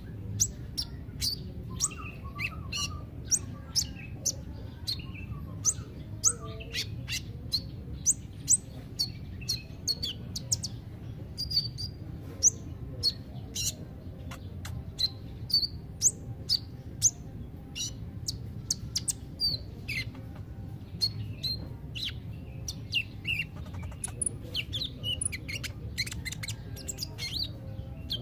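Van Hasselt's sunbird (kolibri ninja) singing: a rapid, unbroken run of short, sharp, high-pitched chirps, several a second, over a low steady hum.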